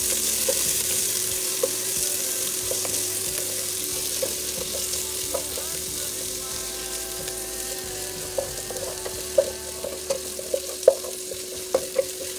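Sliced onion sizzling in hot oil in a pot as it is sautéed toward half-golden, stirred with a wooden spatula. The sizzle is loudest at first and eases off, and from about eight seconds in the spatula knocks against the pot in quick, irregular taps.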